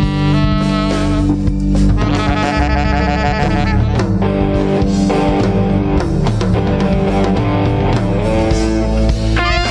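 Live jazz quartet playing: alto saxophone holding long notes over electric guitar, electric bass and drum kit.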